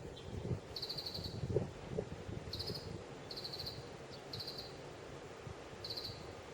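High-pitched animal calls: about six short, rapidly pulsed trills, each under half a second, at irregular spacing of roughly once a second, over a low rumble of wind on the microphone.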